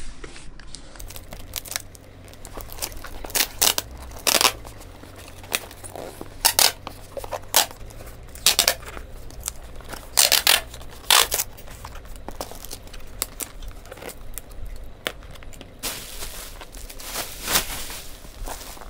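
Brown packing tape being pulled off its roll in a series of short rips and pressed onto a cardboard shoebox, then bubble wrap rustling near the end as a sheet is spread out.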